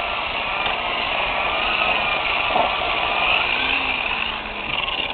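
Low-RPM electric buffer with a wool pad running steadily against an aluminum motorcycle shock tube, polishing it. The motor's pitch wavers slightly as it is pressed against the tube.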